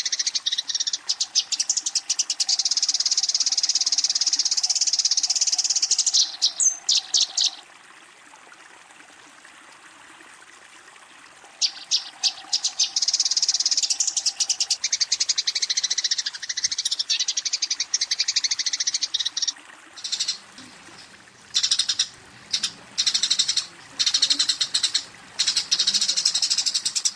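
Eurasian tree sparrows giving fast, chattering chirp trains, the aggressive fighting call used to challenge a rival. Two long bouts of several seconds each are separated by a pause of a few seconds, followed by a string of short bursts near the end.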